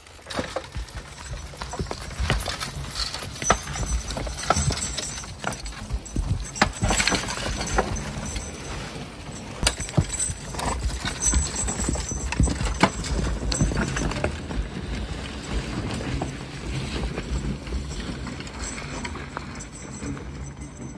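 A team of Belgian draft horses moving in harness: a steady run of irregular hoof falls and knocks.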